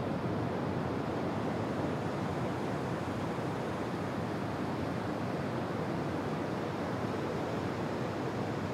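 Ocean waves washing steadily: an even rushing hiss of surf with no single crash standing out.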